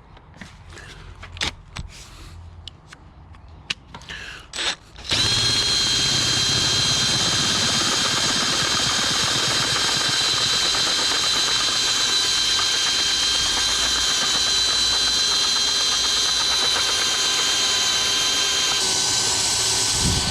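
A few light clicks of handling, then about five seconds in an electric drill starts and runs steadily with a high whine, drilling a hole in a steel attachment pin to take a grease nipple. The tone shifts slightly near the end.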